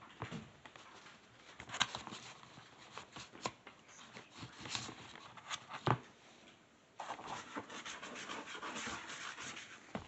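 Close scratching and rubbing as a child paints with a brush at a tabletop and handles the cups, with several sharp knocks, the loudest about six seconds in.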